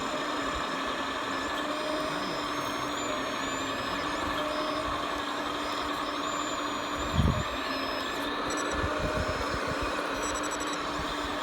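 Radio-controlled model construction machines working: a steady hum with thin high whines that glide up and down as the electric drives and hydraulics move, and a single thump about seven seconds in.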